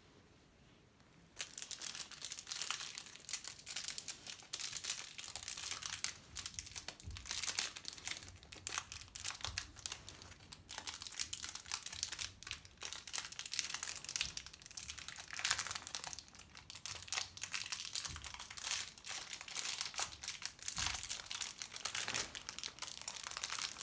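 Small clear plastic bag crinkling and crackling as it is handled, starting about a second in and going on without a break.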